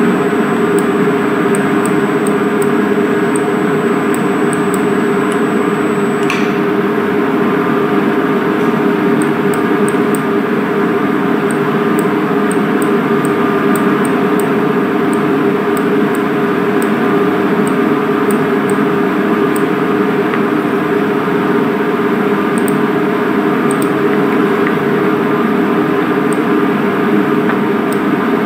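Steady machine hum with a constant low drone, and a thin high whine that stops about six seconds in.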